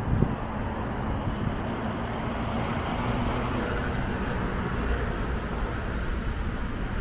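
City road traffic: a steady rumble of car engines and tyres, with one vehicle passing closer in the middle.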